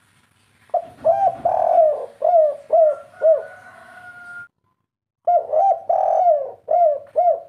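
Spotted dove (derkuku) cooing: two phrases of repeated arched coos, the first starting about a second in and the second after a short pause past the middle, in the three-part 'kuk 3' song style.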